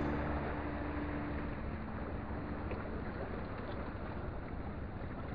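Steady open-air noise of wind on the microphone and water along a rock breakwater. A low hum in the background fades out over the first two or three seconds.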